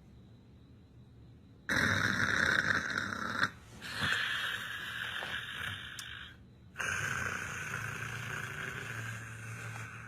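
A person snoring in an odd, comical way: three long, noisy snores, each starting abruptly, the first about two seconds in.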